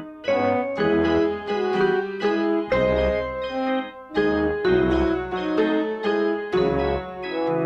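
Background piano music: a melody over chords and low bass notes, played in short phrases with brief dips between them.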